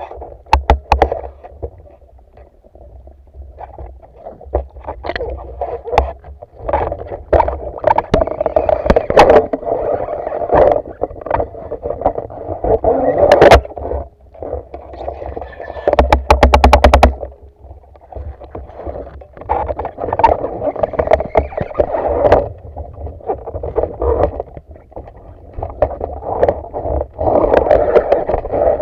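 Muffled underwater noise picked up through the housing of a camera mounted on a speargun, with uneven rushing water movement and scattered knocks and clicks from the gun being handled. A quick, even run of clicks comes a little past halfway.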